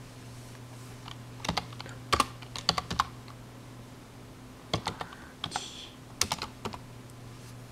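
Typing on a computer keyboard: two short runs of keystroke clicks, one about a second and a half in and another around five seconds in, over a steady low hum.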